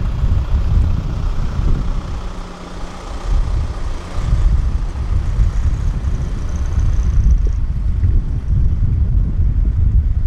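Wind buffeting the microphone: a loud, uneven low rumble that swells and dips with the gusts.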